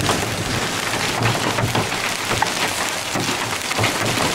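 Heavy rain pouring down steadily, a dense patter of many small drop impacts.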